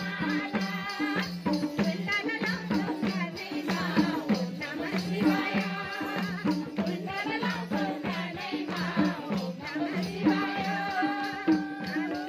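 Nepali folk bhajan played live: a woman singing over harmonium, with madal drums keeping a steady beat and a tambourine jingling along.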